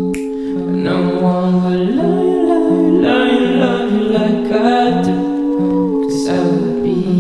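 Background music: long held chords with a repeated low note pulsing underneath and a wordless vocal melody gliding over them.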